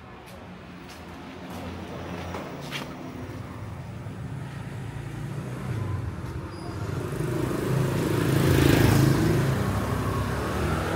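A motor vehicle's engine approaching and passing close by, growing steadily louder to a peak about nine seconds in, then easing off.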